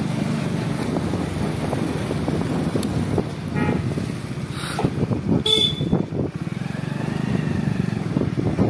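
Motorcycle engine running steadily while riding along a lane, with two short horn toots in the middle.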